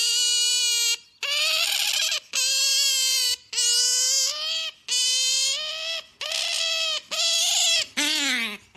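Asian small-clawed otter giving a run of about eight loud, high-pitched calls, each about a second long with short breaks between, the last one sliding down in pitch. These are begging calls, made while it reaches for a treat.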